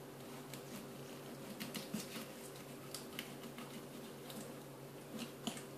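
Knife cutting into a whole little tunny behind the head on a wooden cutting board: faint, irregular clicks and crackles of the blade working through skin and flesh, over a low steady hum.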